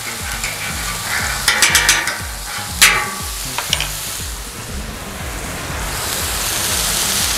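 Butter and burger patties sizzling on a hot flat-top griddle, with a few sharp clicks about one and a half to three seconds in. The sizzle grows louder near the end.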